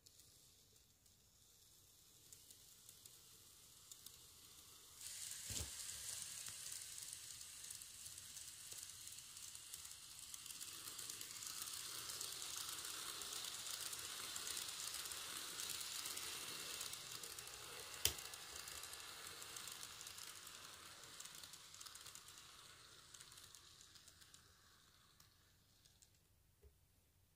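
Model electric train running on sectional track: a faint rattling hiss of wheels and motor that rises suddenly about five seconds in as the train comes by, then fades away near the end. One sharp click stands out partway through.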